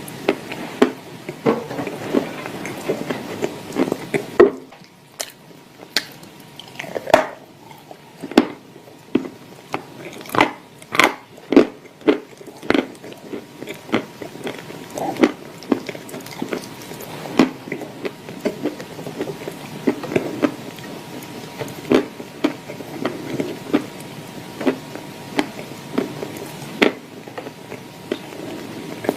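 Dry clay chunks eaten with clay paste, close to the microphone: repeated sharp crunches, thickest in a run from about five to thirteen seconds in, over softer chewing.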